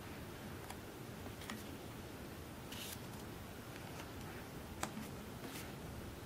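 Pages of a photo book being turned by hand: a few brief paper rustles and one sharp tap, over faint steady hiss.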